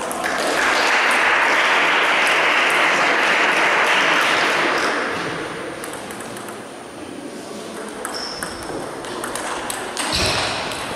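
Table tennis: a loud rushing noise lasting about four seconds follows the end of a rally. Then a few sharp clicks and knocks of the celluloid-type ball on the table and bat come near the end, as play is readied for the next serve.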